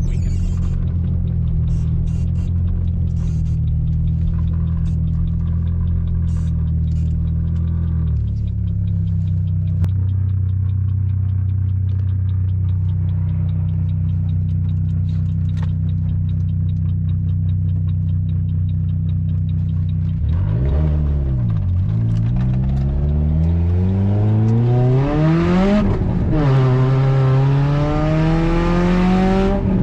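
Supercharged 2.0-litre four-cylinder of a 2005 Chevy Cobalt SS, heard from inside the car: a steady cruise, then about two-thirds of the way through the engine pitch dips and climbs as the car accelerates hard. The pitch falls briefly at a gear change and climbs again.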